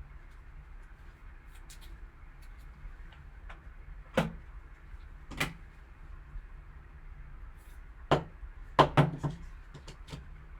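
Trading cards being handled on a table: a handful of short, sharp clacks and taps, two of them close together near the end, over faint small rustles and ticks.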